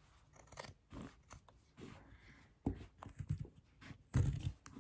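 Brand-new fabric scissors cutting through a double layer of denim jeans leg, a series of irregular snips and crunches, the loudest about four seconds in.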